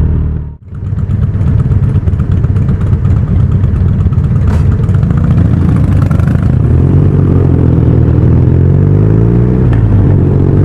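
BMW R nineT's boxer twin engine running under way as the motorcycle rides, its pitch climbing steadily in the second half and then dropping off. The sound cuts out briefly about half a second in.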